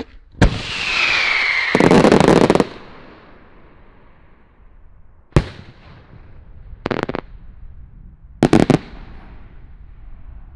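Fireworks going off: a sharp bang, then a hiss with a whistle falling in pitch that breaks into a loud burst of dense crackling. About five seconds in comes another sharp bang, followed by two short crackling bursts.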